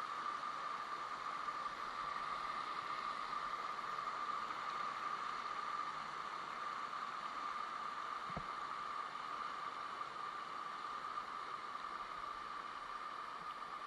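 Steady rushing water of a waterfall or stream: an even, unbroken hiss.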